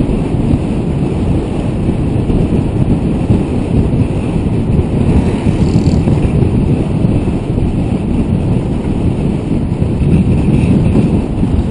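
Wind buffeting the microphone of an action camera on a moving bicycle, a steady loud rumble.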